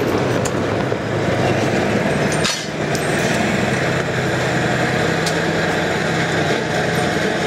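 A tank's engine running steadily as the tank moves along the street, with a short dip in the sound about two and a half seconds in.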